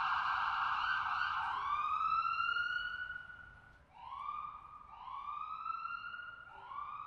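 Siren: a fast warble, then from about a second and a half in, four rising wails that come more faintly.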